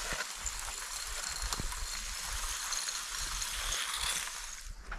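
Green gill net and its lines sliding over the ice edge and down into the slushy water of an ice-fishing slot: a steady hiss with a few light clicks.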